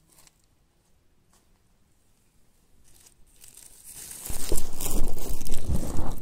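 Footsteps in dry fallen leaves: near quiet with a few faint crackles, then from about four seconds in, loud crunching and rustling of the leaf litter underfoot.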